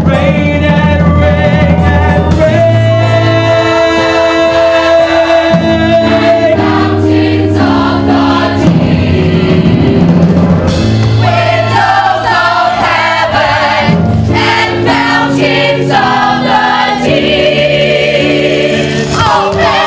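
Youth theater ensemble singing a choral number with accompaniment, in long held notes that change in steps, some with a wavering vibrato near the end.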